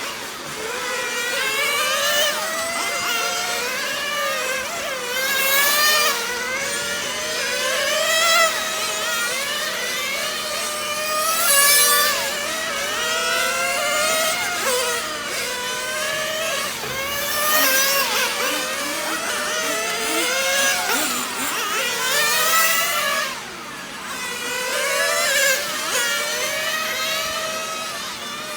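Small two-stroke glow engines of nitro 1/10-scale RC cars revving up and down, several engines overlapping, their pitch rising and falling every second or two.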